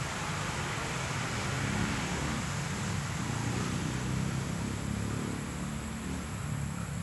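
Alsthom AD24C diesel-electric locomotive hauling a freight train, its engine a steady low rumble.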